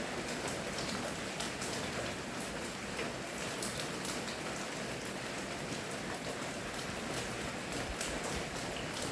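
Steady rain falling, an even hiss with many close drop ticks and splashes on a surface.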